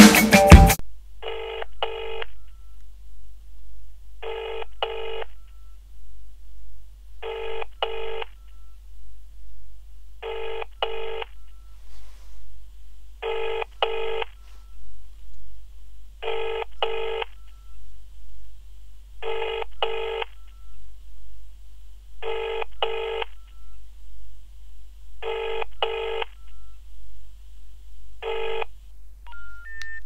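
Smartphone earpiece/speaker playing the ringback tone of an outgoing call that is ringing at the far end: a low double ring, two short pulses, repeating about every three seconds. A snatch of loud music cuts off within the first second.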